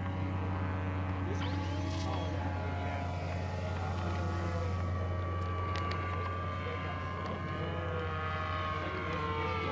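RC model airplane engine and propeller running steadily in flight, with a buzzing tone whose pitch drifts gently as the plane moves across the sky.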